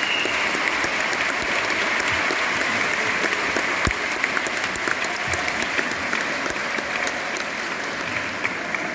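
Concert-hall audience applauding, a dense steady clapping that eases off slightly near the end.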